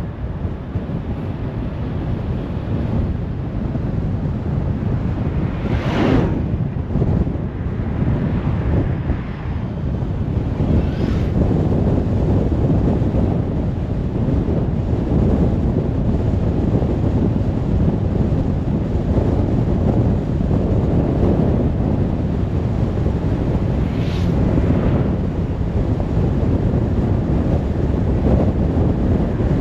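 Steady wind and road noise from a car driving along, with other vehicles whooshing past about 6 seconds and 24 seconds in.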